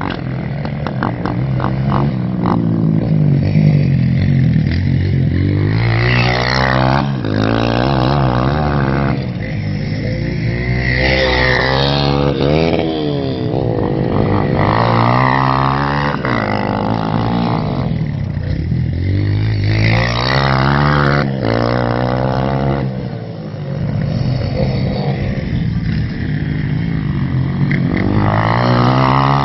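Fuel-injected RPS Hawk DLX 250's air-cooled four-stroke single (230 cc) ridden hard on a dirt track: the engine revs up and drops back again and again through the turns and gear changes.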